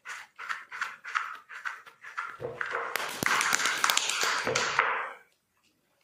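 Clay being wedged by hand on a stone slab: short, evenly spaced pressing strokes, about four a second, then a louder, rougher stretch of rubbing from about two seconds in that stops abruptly near the end.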